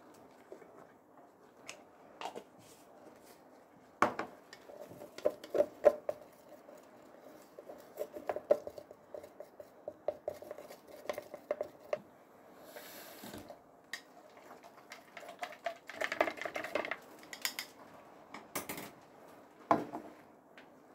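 A wooden stick stirring dye in a glass measuring jug, knocking and scraping against the glass in irregular clusters of taps and clinks.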